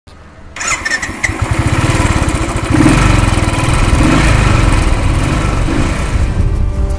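Motorcycle engine running, with a low, evenly pulsing thump. It comes in about half a second in, grows louder over the next couple of seconds and eases off slightly near the end.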